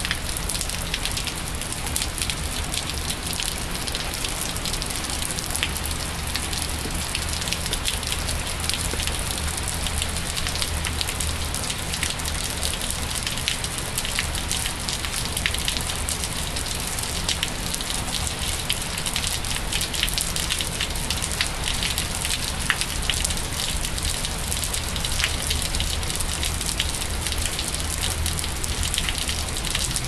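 Steady rain falling on wet pavement and a puddle, a dense, even spray of many small drop impacts.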